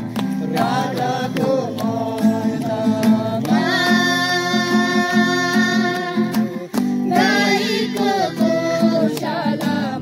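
A child singing into a microphone with other voices joining, accompanied by strummed acoustic guitar chords; the melody holds long notes.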